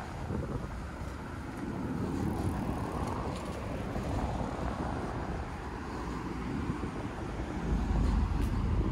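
Road traffic on a multi-lane city street: a steady rush of passing cars, with a low rumble that swells near the end.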